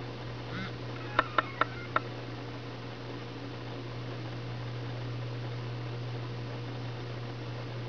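Steady low electrical hum with room tone, broken about a second in by four quick sharp clicks, each a fifth of a second or so apart and each with a brief ringing pitch.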